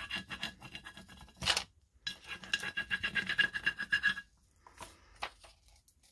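Quick back-and-forth rubbing of a burnishing tool's long edge over a transfer's plastic backing sheet on a glass jar, pressing the design onto the glass: a fast run of scratchy strokes with a short break about a second and a half in. The rubbing stops about four seconds in, leaving a few faint ticks.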